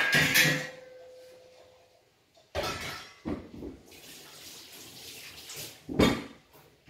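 Kitchen tap water running, with knocks of dishes against one another. One dish rings briefly after the first knock at the start, and another knock comes near the end.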